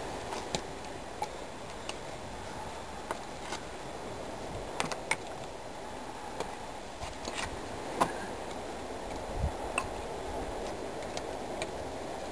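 Nunchaku being spun and swung, giving irregular sharp clacks and ticks as the sticks and chain strike, about a dozen over the stretch, over a steady low rush of background noise.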